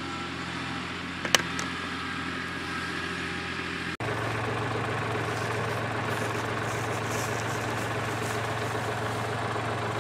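Compact farm tractor engine running, fainter at first with one sharp click about a second in, then from about four seconds in idling close by with a louder, steady low hum.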